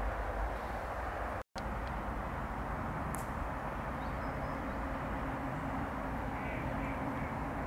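Steady outdoor background noise, a low even rumble without speech or music, cut off for a split second about one and a half seconds in.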